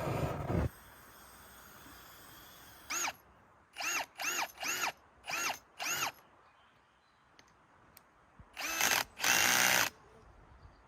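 Power drill run in short trigger pulses, five or six quick bursts with the motor spinning up and down, then a longer run of about a second near the end. A steady rushing noise cuts off within the first second.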